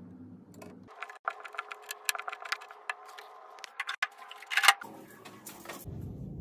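Quick irregular clicks and light metallic taps of screws and fittings being handled and driven during flat-pack furniture assembly, broken by abrupt cuts between short clips. Near the end a duller, lower rustle takes over.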